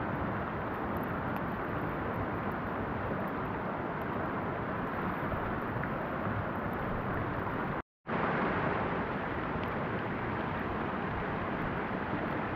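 Steady rush of wind on the microphone, broken once by a brief dropout about eight seconds in.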